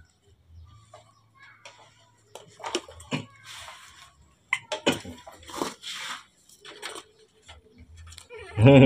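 Rustling of leaves and thin branches with small knocks and clicks as a baby macaque grips and climbs the stems of a small tree on a man's lap. A short burst of a man's low voice comes near the end.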